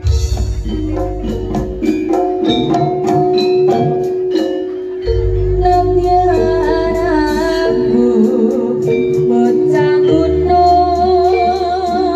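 Live jaranan ensemble music: a steady beat of struck percussion over a sustained low tone and bass, with a wavering melody line, sung or played, coming in about halfway through.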